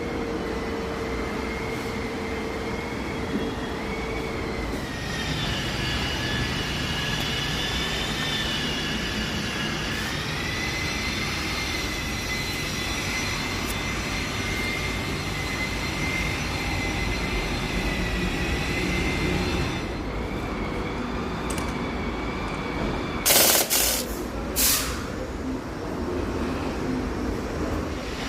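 Mini Cooper D diesel engine running, with a thin high-pitched whine over it that wavers slightly in pitch; this is the noise the customer complains of. Two short, loud bursts of noise come about 23 and 24 seconds in.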